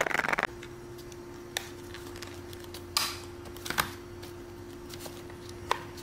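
Leather phone case rubbing as a phone slides in the snug red leather, loud for about half a second and then cut off sharply. After that come a few sharp clicks and taps as the leather cases are handled and put down on the workbench, over a steady low hum.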